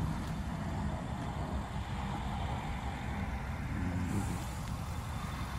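Steady low rumble of road traffic and vehicles, with no distinct engine note standing out.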